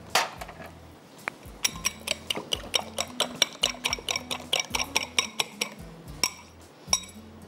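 Egg being beaten with a fork in a small glass bowl: rapid, ringing clinks of metal on glass, about five a second, from about a second and a half in until near the end.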